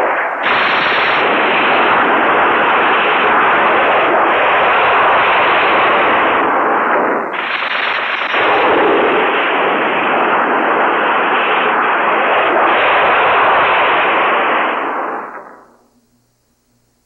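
Film sound effect of a prolonged explosion and rumbling destruction, heard as a loud rattling noise. It comes in two long stretches with a brief break about seven seconds in, then fades out about fifteen seconds in.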